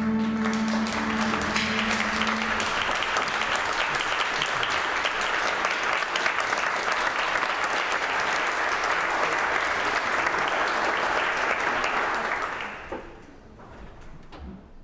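Audience applauding, a dense steady clapping that dies away about twelve to thirteen seconds in. A held musical note fades out under the clapping in the first couple of seconds.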